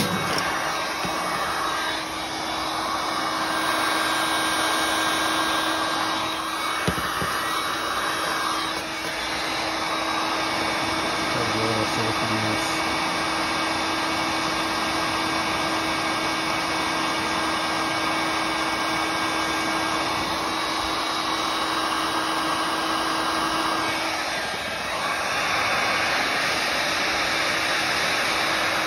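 Heat gun running steadily, its fan giving an even rush of air with a low hum and a faint higher whine, as it heats a ski boot's glued sole to loosen it.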